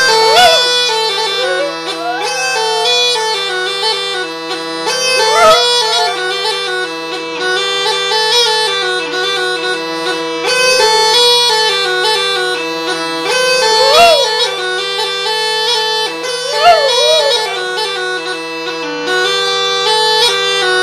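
Baltic bagpipe playing a stepping melody over a steady low drone. A dog howls along several times, each howl rising and falling in pitch and standing out above the pipes.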